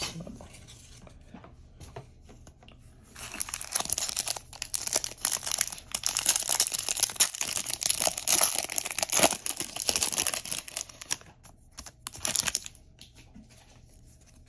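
Foil wrapper of a 2024 Bowman baseball card pack being torn open by hand: crinkling and tearing starting about three seconds in and lasting about eight seconds, with a shorter crinkle burst near the end.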